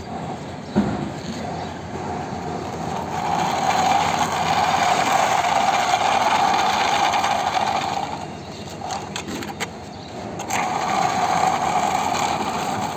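Plastic toy army jeep pushed by hand over gritty concrete, its wheels rolling and grinding with a steady whirr. The whirr runs through a long middle stretch, drops away for about two seconds, then comes back near the end.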